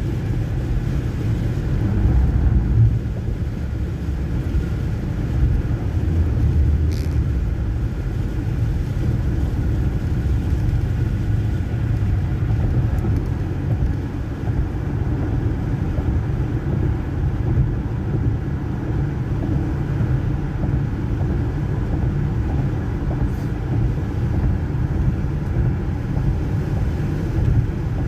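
Steady road noise inside a car's cabin at highway speed: engine and tyre rumble on a rain-wet interstate. Two faint ticks sound about sixteen seconds apart.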